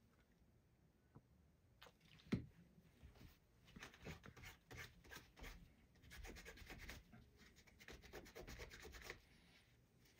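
Faint, quick rubbing strokes of hand polishing on the cylinder of a Colt Frontier Scout .22 revolver, starting about three and a half seconds in and stopping shortly before the end. A single light knock comes about two seconds in.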